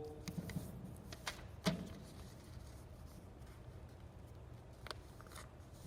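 Sheet of paper being folded into a paper airplane: a few short, soft crinkles and taps as the folds are made and creased, over a low steady hum.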